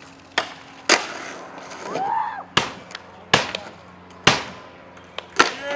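Skateboard tricks on concrete and rails: about six sharp clacks of the board popping and landing, with a longer stretch of wheel and board noise between about one and two and a half seconds in.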